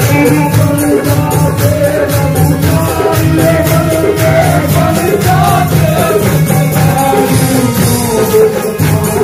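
A Haryanvi devotional bhajan performed live: a man singing into a microphone, accompanied by harmonium and a steady beat of hand percussion with jingles.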